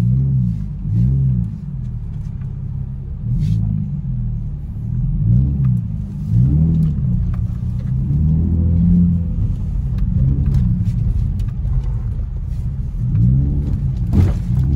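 Low car rumble heard from inside the cabin of a slowly moving car. Its pitch swells up and falls back about once a second.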